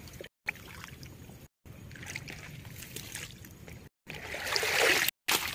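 Water sloshing and splashing, with a louder splash building about four seconds in and lasting about a second. The sound cuts out completely for brief moments a few times.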